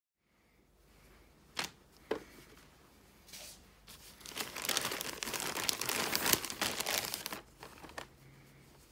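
Plastic mailing satchel crinkling as folded fabric beanies are handled and packed into it. Two sharp clicks about half a second apart come first, then a few seconds of dense crinkling that tails off near the end.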